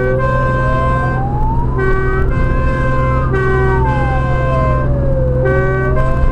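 Fire engine running on sirens: a two-tone horn switching between a high and a low note about every 0.8 s, layered with a wail that slowly rises and falls about every five seconds. The truck's engine and road noise drone underneath.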